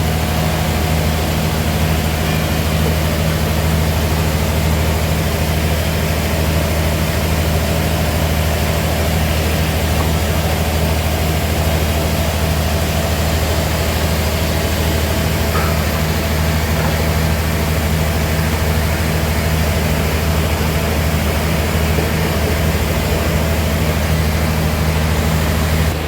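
Sawmill machinery running steadily, a loud, even, low engine hum that holds the same pitch throughout.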